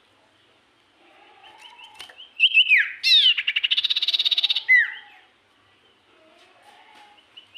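A songbird singing in full voice: a run of short high notes builds to loud falling whistles, then a fast stuttering trill for about a second and a half, ending on a falling note before quieter repeated notes resume near the end.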